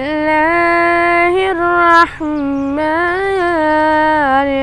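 A boy's voice reciting the Quran in a melodic chant, drawing out long held notes that bend gently in pitch, with a brief breath about two seconds in.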